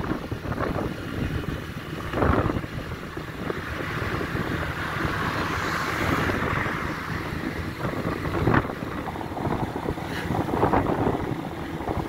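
Motorcycle running at road speed, a steady low engine hum mixed with wind rushing over the microphone, strongest around the middle.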